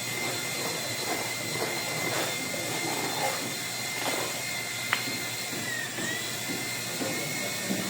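Electric tile-cutting saw running steadily with a high whine, the pitch dipping briefly about six seconds in as the motor takes load, with a single sharp click about five seconds in.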